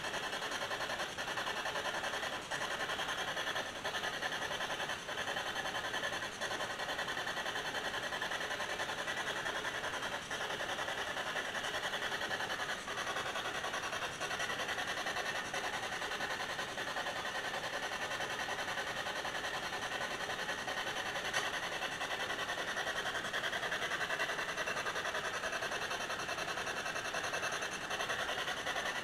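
Steady hiss-like background noise with a few faint clicks.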